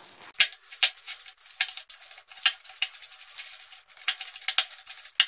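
Wire whisk beating thick urad dal batter in a glass bowl: irregular clicks and scrapes of the whisk against the glass, about two a second.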